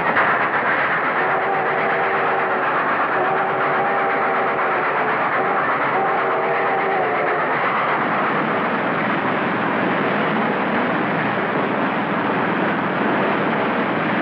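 Steam train running at speed, a steady, loud noise throughout. A several-note chime whistle sounds three long blasts in the first half.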